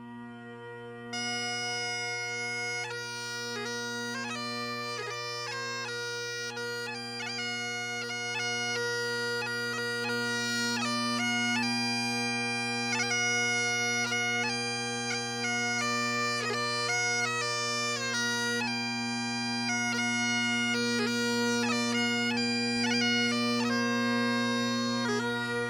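Bagpipes playing a tune. The steady drones sound underneath throughout, and the chanter melody comes in about a second in.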